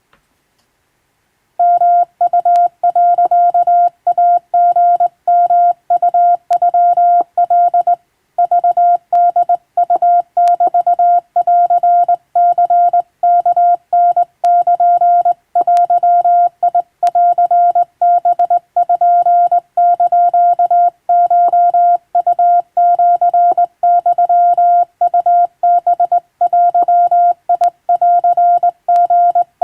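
Hand-keyed Japanese (wabun) Morse code: a steady tone of about 700 Hz keyed on and off in dots and dashes. It starts about a second and a half in and has a short break near eight seconds.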